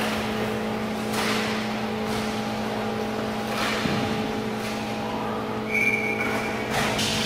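Inline roller hockey play heard from behind the rink glass: a steady hum with a few sharp knocks of sticks and puck, and a brief high tone about six seconds in.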